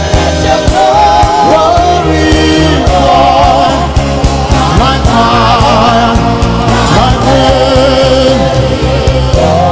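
Live gospel worship music: voices singing long, wavering held notes over sustained low bass notes and a steady beat.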